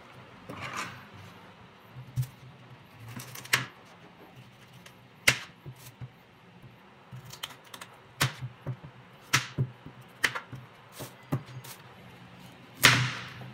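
Kitchen knife cutting and scraping the skin off taro corms on a plastic cutting board: irregular sharp knocks and short scrapes, roughly one every second or two, the loudest near the end.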